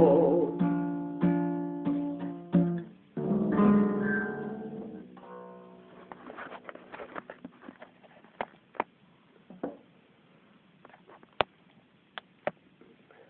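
Acoustic guitar playing the closing chords of a song, strummed and left to ring until they fade out about five seconds in. Faint scattered clicks follow.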